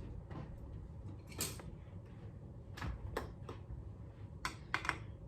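Scattered light clicks and knocks of small objects being handled, a handful of them spread unevenly, with a cluster near the end.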